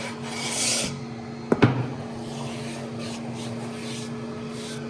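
Sanding strokes of an 80-grit leveling bar along a wooden guitar fretboard with epoxy-filled inlays, leveling the inlays to the fretboard's radius. A strong rasping stroke comes in the first second, two sharp knocks follow about a second and a half in, then lighter strokes. A steady low hum runs underneath.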